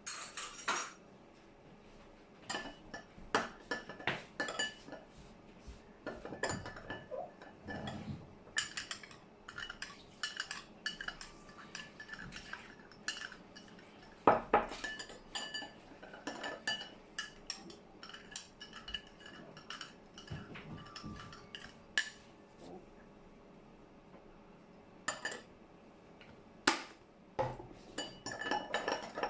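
A spoon clinking and scraping against a bowl in irregular strokes, stirring a dipping sauce to dissolve the sugar. There are two louder knocks, one about halfway through and one near the end.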